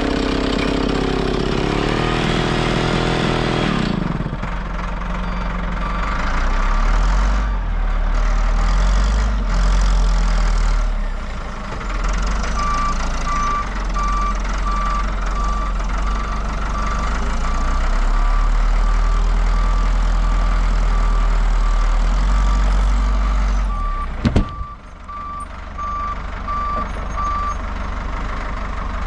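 A Stihl 090 two-stroke chainsaw runs in the cut for the first few seconds and stops. Then a wheel loader's diesel engine runs, rising and falling as it works the log, while its reversing alarm beeps steadily through most of the rest. There is one sharp bang about 24 seconds in.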